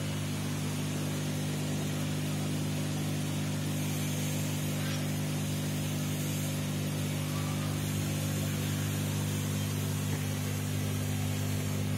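Aquarium air pump humming steadily, with the hiss of air bubbling up from the air stone in the tank.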